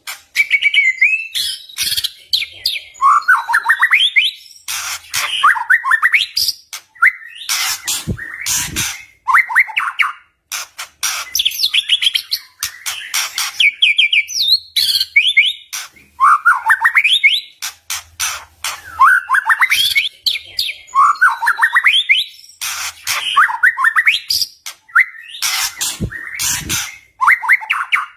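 White-rumped shama (murai batu) singing loudly. It repeats phrases of rapid rising trills and whistles about every couple of seconds, mixed with sharp clicking notes.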